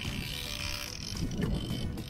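Boat engine running at sea, with wind buffeting the microphone as a rough low rumble and a steady high hiss over it for about the first second.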